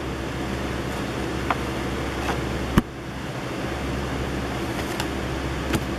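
Steady background hum like a fan or air conditioner, with a few light clicks and taps of cardboard trading cards being handled and shuffled in the hand, the sharpest a little under three seconds in.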